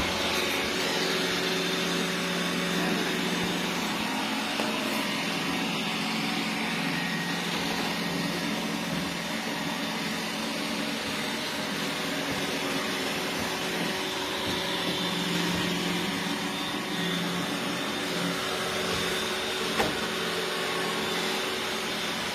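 Roomba robot vacuum running with a steady whir, and one brief click near the end.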